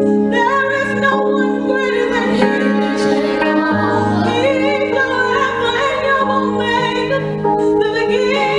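Women singing a slow gospel song live, the lead voice sliding between notes over steady held instrumental chords.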